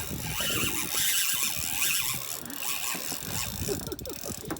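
Fishing reel drag screaming as a big fish pulls line off the spool.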